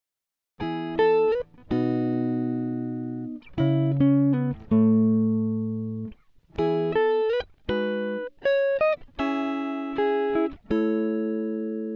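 Background music: a melody of plucked, guitar-like notes that begins about half a second in, after a brief silence.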